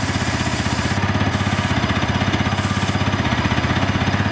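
Bajaj Pulsar NS200's single-cylinder engine idling with an even pulse, the drive chain turning. An aerosol can of Motul chain lube hisses onto the chain in spurts, one long spray and then two short ones, and stops about three seconds in.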